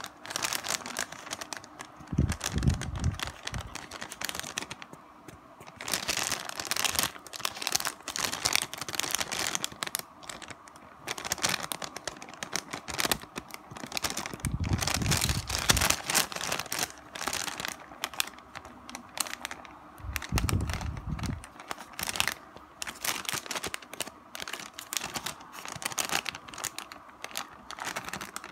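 Plastic wrapper of a Tao Kae Noi Big Sheet crispy seaweed snack crinkling in irregular bursts as fingers handle and squeeze it, with three spells of low rumbling handling noise.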